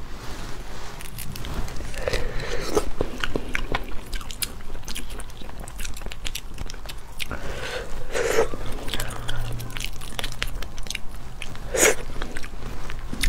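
Crunching and crackling as a cooked starfish's stiff, spiny arm is broken open by hand, mixed with chewing. There are many small sharp cracks, with louder crunches about two, eight and twelve seconds in.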